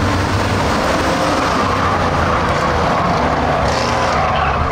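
A pack of Ford Crown Victoria dirt-track race cars, their V8 engines running hard together as the field accelerates away on a green-flag start, loud and steady.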